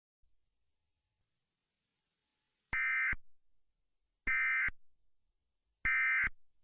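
Three short bursts of Emergency Alert System SAME digital data tones, each about half a second long and about a second and a half apart, starting nearly three seconds in: the end-of-message signal that closes an alert.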